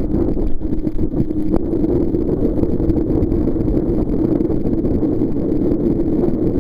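Steady, muffled rush of wind and water as a kneeboard is towed at speed across a speedboat's wake, heard from a chest-mounted camera.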